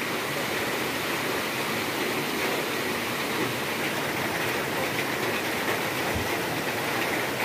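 Steady rush of a shallow stream pouring over rocks.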